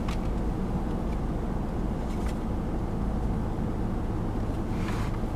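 Steady low rumble of a car heard from inside the cabin, with a few faint ticks.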